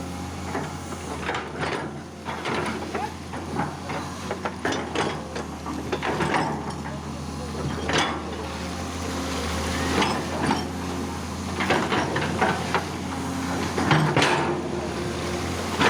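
Excavator's diesel engine running steadily, with irregular knocks and clanks from the digging.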